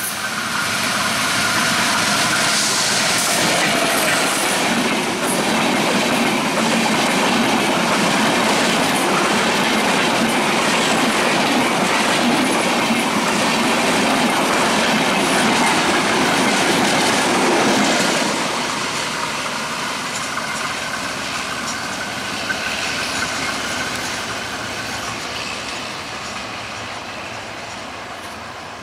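Diesel locomotive and passenger coaches of the Maitree Express passing at close range, the wheels running loudly over the rails. About eighteen seconds in the sound begins to fade steadily as the last coach moves away.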